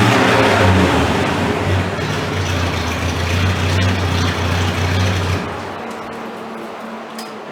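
A motor vehicle running with a steady low engine hum and wide road-like noise, dying away after about five seconds.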